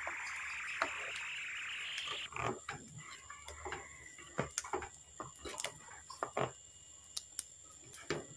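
A plastic spoon scraping and knocking against a pot as thick flour-and-coconut-milk batter is stirred while it cooks and thickens, in irregular clicks and scrapes. The first two seconds are a steady hiss that cuts off.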